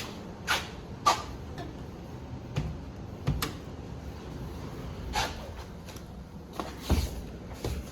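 A handful of short, irregular knocks and clunks, about seven, spaced a second or so apart, over a faint low background rumble.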